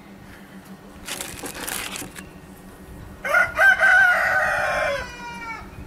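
A rooster crowing once, a loud drawn-out call starting about three seconds in that drops in pitch as it ends. Before it comes a short burst of rustling.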